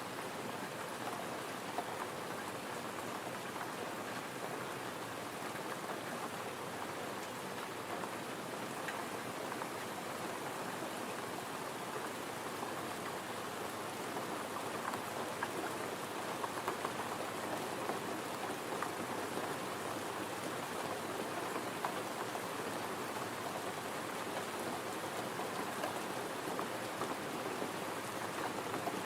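Gentle rain falling steadily, an even hiss of many small drops landing.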